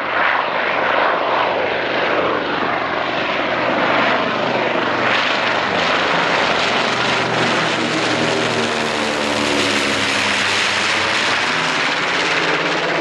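B-25 Mitchell bomber's two Wright R-2600 Cyclone radial engines at takeoff power, the aircraft passing low overhead and climbing away. Loud and steady throughout, with the tone sweeping downward as it goes over.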